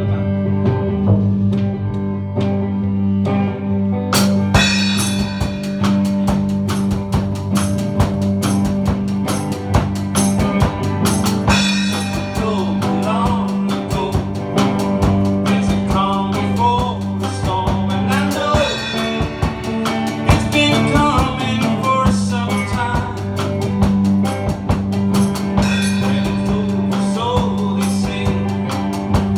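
Music: a guitar-led song with singing, and a drum kit keeping a steady beat that comes in about four seconds in.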